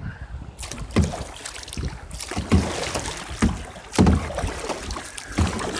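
Kayak on a creek: paddle strokes dipping and splashing in the water, several sharp strokes about a second apart over a steady wash of moving water.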